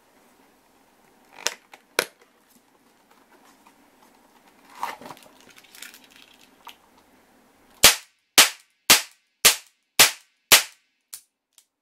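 HWS Type 26 model-gun revolver firing six caps in quick double-action succession, about two sharp reports a second. A couple of clicks and a rustle of leather come before the shots, and two much fainter clicks follow them.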